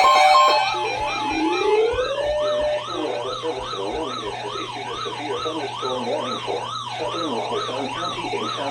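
An electronic siren winds up in pitch over the first couple of seconds, then wails rapidly up and down, about twice a second. A set of steady tones cuts off about half a second in.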